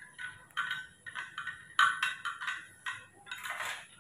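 A spoon clinking against a container in a quick run of sharp, briefly ringing clinks, roughly two to three a second, as formula milk is stirred, with a short rustle near the end.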